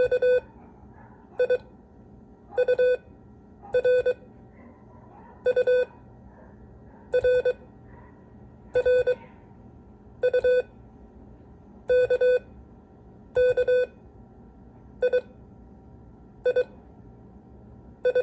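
Morse code practice tone sending single letters, I, K, U and R mixed, one short group of dots and dashes about every second and a half.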